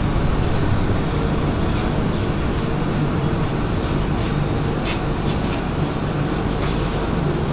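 Cabin running noise of a rubber-tyred Bombardier Innovia APM 100 people-mover train travelling along its guideway: a steady low rumble, with a thin high whine from about one and a half seconds in until about six seconds.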